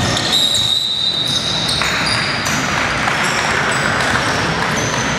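Referee's whistle blown in one long steady blast near the start, then the echoing noise of the gym with a few short high squeaks of sneakers on the court.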